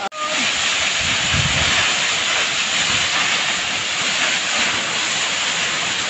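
Waterfall: water pouring down a rock face, a steady, even rush of falling water.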